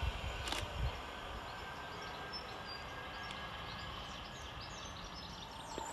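Faint low rumble of a Class 331 electric multiple unit pulling away into the distance, dying out within the first second. After that only a steady faint outdoor hiss, with small birds chirping.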